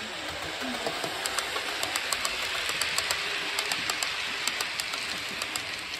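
OO gauge Hornby Terrier model tank engine hauling five bogie coaches past, with a steady whirr of motor and wheels on the rails and many light, rapid clicks. It grows louder as the train passes close, then eases off near the end.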